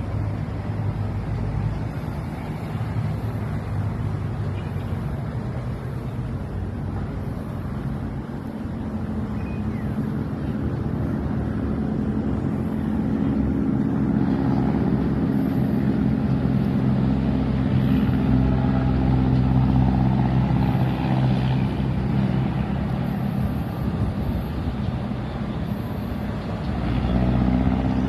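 Motor vehicle engines running, a steady low rumble that grows louder in the middle and again near the end.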